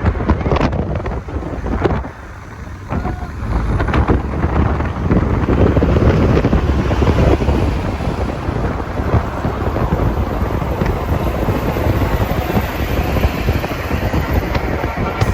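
Wind buffeting the microphone of a moving vehicle, over road and engine noise, dropping briefly about two seconds in.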